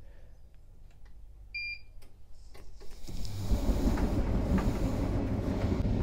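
Bosch Serie 4 heat pump dryer: one short electronic beep as the program is started. From about three seconds in, the machine is running with a steady low hum and the rumble of the turning drum.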